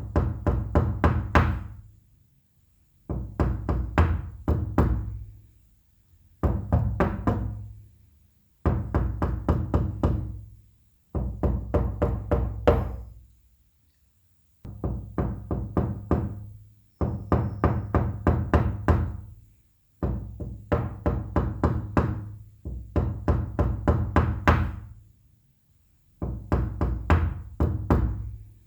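Loud knocking on a wooden door in rapid bursts of about eight to ten knocks, each burst lasting about two seconds, repeated again and again with short pauses between.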